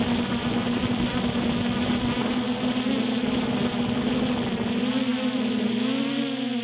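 Multirotor drone's motors buzzing steadily in flight, a constant whine with overtones. A low rumble under it drops away about five seconds in, and the pitch wavers slightly near the end.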